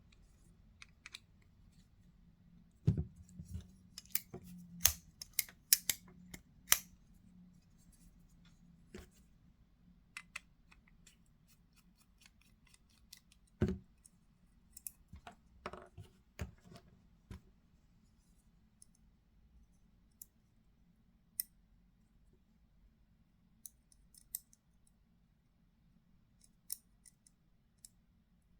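Kizer Hyper button-lock folding knife being opened and closed by hand, its blade swinging on a freshly loosened pivot: sharp metallic clicks, a quick run of them in the first several seconds, then scattered single clicks.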